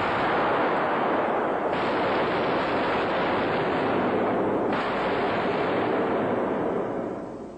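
Heavy, continuous gunfire, with the shots running together into one loud rushing noise. It shifts abruptly twice and fades out near the end.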